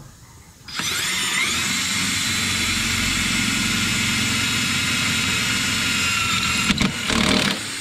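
Impact gun fitted with a drill-bit arbor drilling a pilot hole in a truck's rocker panel. The motor winds up in pitch about a second in, then runs with a steady whine for about six seconds and stops. A short second burst of drilling comes near the end.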